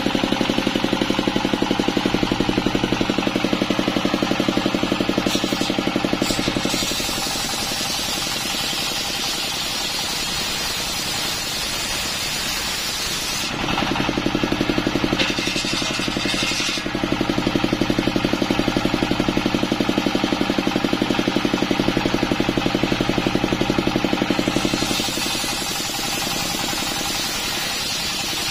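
Stationary single-cylinder diesel engine belt-driving a large circular saw blade that rips split coconut-palm trunk. The engine's fast chugging grows louder for the first six seconds and again from about 14 to 25 seconds in, and eases off between, with the hiss of the blade in the wood coming and going.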